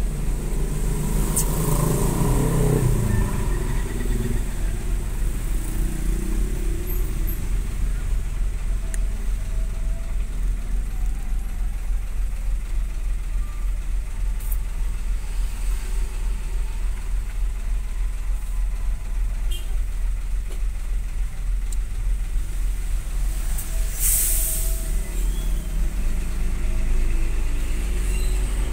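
Steady low drone of a motor vehicle's engine heard from inside its cab while moving slowly in traffic, with a short hiss about 24 seconds in.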